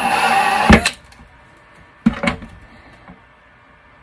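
Cordless drill spinning a step bit through the plastic enclosure wall, enlarging a hole one step so a cable gland will thread in. It runs for about a second, then stops with a knock. About two seconds in come a few light knocks of handling the box.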